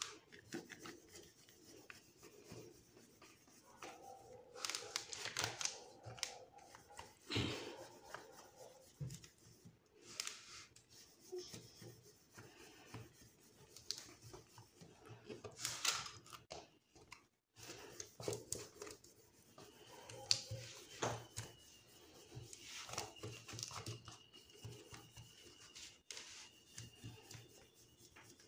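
Faint handling of paper and plastic craft sheets: scattered rustling, rubbing and light clicks.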